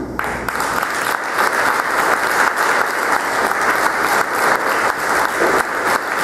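Audience applauding steadily, with the dense clapping of many hands.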